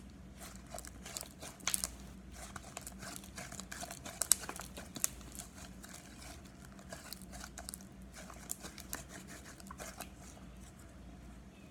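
Brown slime being swirled and worked for ASMR, giving off irregular small sticky clicks and crackles.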